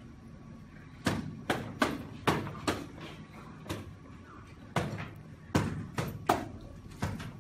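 A series of about ten sharp knocks at an irregular pace, some coming in quick pairs, starting about a second in.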